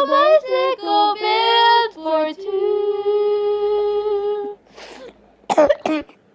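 A solo voice singing a melody, with no accompaniment, ending on a long held note. Near the end come coughs, two sharp bursts close together.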